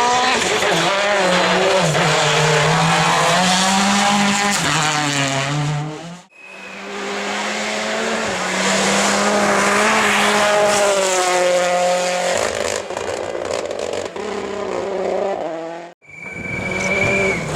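World Rally Championship cars' 1.6-litre turbocharged engines at full effort on a rally stage, the revs rising and falling through gear changes as the cars pass. The audio breaks off abruptly twice, about six seconds in and near the end, as one car's pass gives way to the next.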